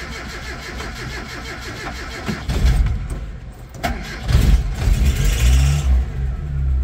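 A 40-year-old Mitsubishi-built Ram 50 mini truck's carbureted four-cylinder engine is cranked over on the starter for about two and a half seconds. It catches, stumbles, catches again and revs up before settling. This is a cold start with the choke not working.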